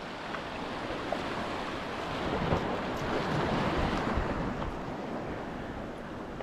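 Sea surf washing and breaking against a rocky shoreline, with wind noise on the microphone; the wash swells a little midway.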